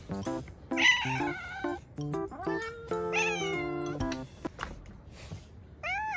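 A cat meowing three times, the first call about a second in the loudest and the last starting near the end, over background music with short stepped notes.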